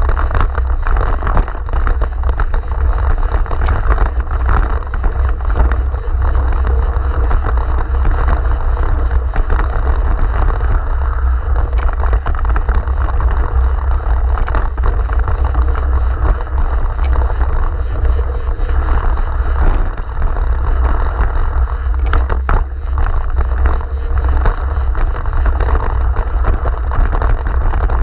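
Wind buffeting the microphone of a camera riding on a mountain bike as it descends dirt singletrack, a steady low rumble over the noise of the tyres rolling on the trail. Small knocks and rattles from the bike going over bumps run through it.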